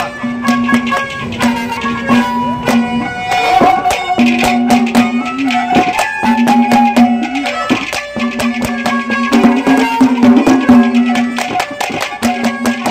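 Haryanvi ragni folk accompaniment playing an instrumental passage: a steady run of hand-drum strokes under a melody instrument that keeps returning to one held note.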